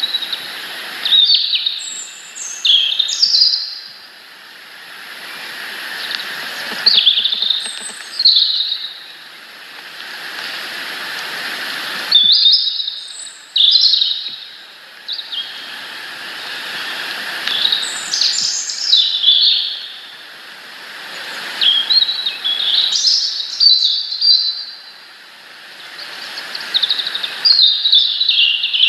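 Small songbirds chirping in quick clusters of short high calls every few seconds, over a rushing background noise that swells and fades.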